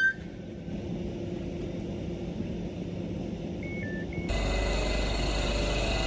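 Train running through a station with a steady rumble, just after a horn cuts off. Three short high beeps sound past the middle. About two-thirds of the way in, the sound switches suddenly to a louder electric train hum with steady whines.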